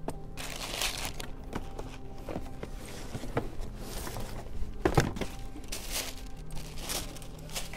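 Tissue paper rustling and crinkling as cardboard shoeboxes are handled and unpacked, with a couple of sharp knocks about five seconds in as a box is set down on the counter.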